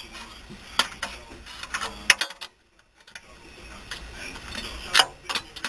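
Steel lug wrench clicking and clinking on the wheel's lug nuts as they are turned and snugged down by hand, a few sharp metallic clicks at irregular intervals. The sound drops almost to silence for under a second a little before the middle.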